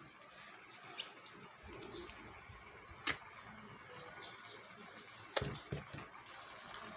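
Hands handling a parcel's packaging: light rustling with a few sharp clicks and taps, the loudest about three and five seconds in.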